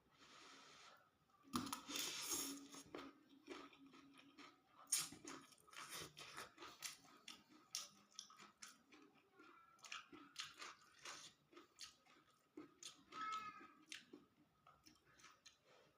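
Faint close-up chewing and crunching of fried rice vermicelli with tofu and water spinach: irregular wet clicks and mouth smacks, with a few louder bites.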